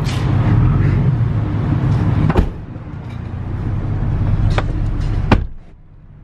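A Chevy pickup's V6 engine running, heard from inside the cab, with a few sharp clicks. The sound falls off sharply near the end.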